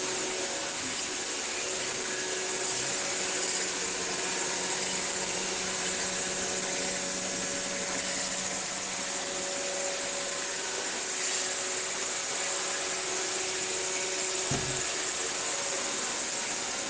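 Steady white noise played to lull a baby to sleep: an even hiss with faint steady hum tones under it. A brief low thump sounds once late on.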